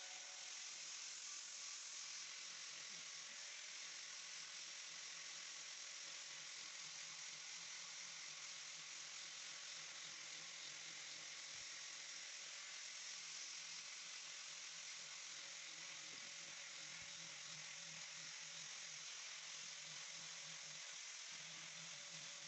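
Faint, steady hiss with a low motor hum: an angle grinder fitted with a sanding disc, running continuously while sanding a wooden table top.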